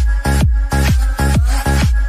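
Electronic dance music with a steady four-on-the-floor kick drum, about two beats a second, under sustained synth tones.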